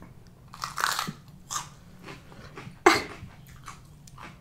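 Close-miked eating sounds: crunchy bites and chewing, with several crunches and the sharpest, loudest one about three seconds in.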